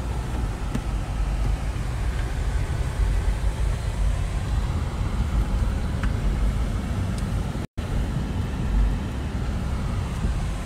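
Steady low road and engine rumble heard inside a moving Toyota's cabin, cutting out for an instant about three-quarters of the way through.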